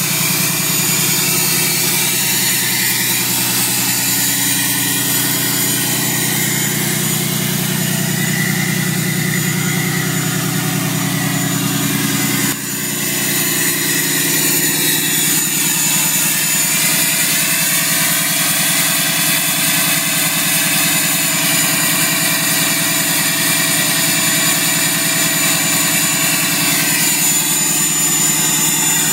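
6.7-litre Cummins turbo-diesel running steadily at high idle with the exhaust brake engaged, a constant drone with a high steady whistle over it.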